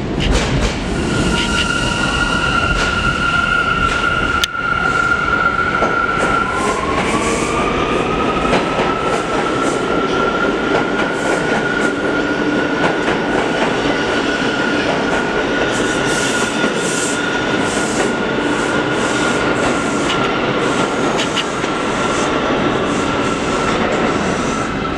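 A New York City subway train pulls out of an underground station. A steady electric whine breaks off about six seconds in, and a new whine rises in pitch as the train accelerates. Later the wheels clatter rapidly over the rail joints as the cars pass.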